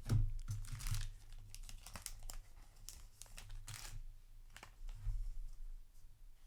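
Thin plastic card sleeve crinkling and rustling as a trading card is handled and slid into it, with irregular sharp crackles that are loudest near the start and about a second in.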